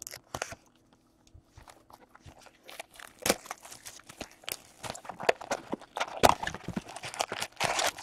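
Plastic shrink wrap on a sealed trading-card box being slit with a pocket knife and torn off: crinkling and crackling, busier and louder from about three seconds in.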